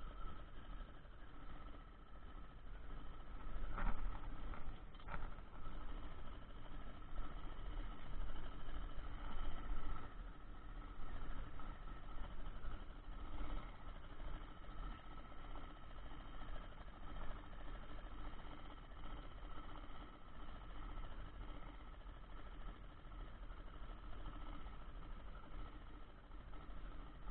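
Small boat motor running steadily with a constant whine, and two sharp knocks about four and five seconds in.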